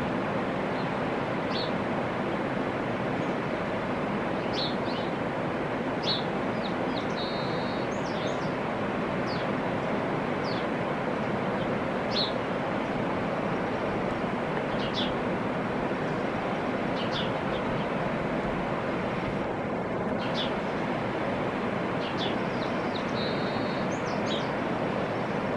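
Fast, choppy river water rushing steadily over a rocky bed, with scattered short, high bird chirps.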